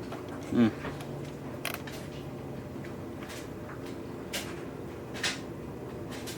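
Steady background hum with a brief murmur from a person about half a second in, then a few light, sharp clicks spread through the rest.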